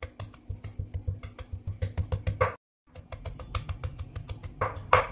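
Kitchen knife rapidly mincing red chilli and garlic on a wooden cutting board: quick, steady taps of the blade on the board, several a second, dropping out briefly about halfway through.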